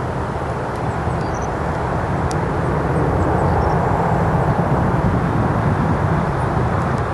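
Steady roar of jet aircraft engines, swelling slightly a few seconds in.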